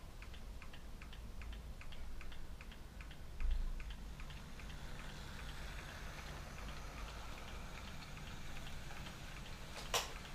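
Hornby Santa's Express model train running on its track: a rapid, even ticking from the loco's wheels and mechanism, with a faint motor hum as it passes close by. A dull thump about a third of the way in and a sharp click near the end.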